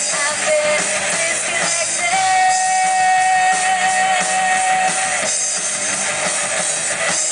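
Live rock band playing: distorted electric guitars, bass and drum kit, with a female singer who holds one long note for about three seconds, starting about two seconds in.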